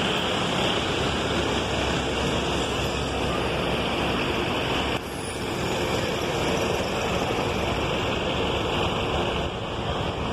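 Steady noise of city buses running at a bus stand: engines idling and moving, with a brief dip in level about halfway through.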